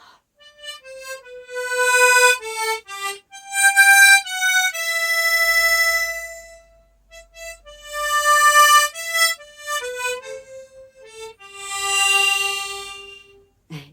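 G-key harmonica playing a slow melody line one note at a time, with a long held note in the middle and a last low note held with an even pulsing tremolo.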